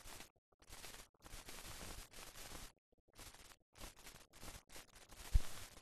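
Soundtrack hiss and static that keeps cutting in and out abruptly, with one short low thump near the end. No aircraft engine or other clear source stands out.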